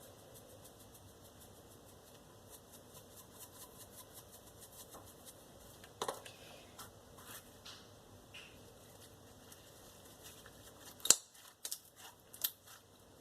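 Faint, quick clicks and taps from a glitter container being handled and shaken, with a few louder sharp clicks near the end.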